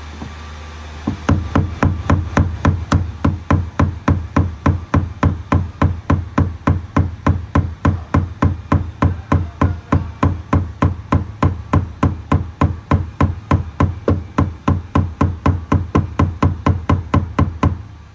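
Rhythmic knocking, about three sharp strikes a second, starting about a second in and stopping just before the end, over a steady low hum.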